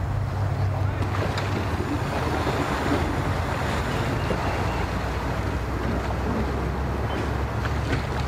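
Sea-Doo personal watercraft engine running steadily at low speed, a constant low hum, as the craft moves slowly off its trailer with water churning at the stern.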